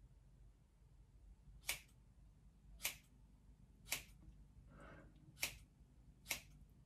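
Scissors snipping through hair: five short, sharp snips about a second apart, with a faint rustle between the third and fourth.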